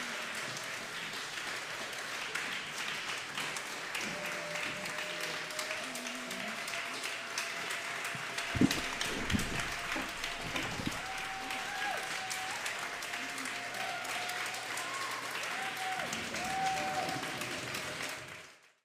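Audience applauding, with a few faint drawn-out tones over the clapping and a couple of dull thumps about eight seconds in. The applause fades out just before the end.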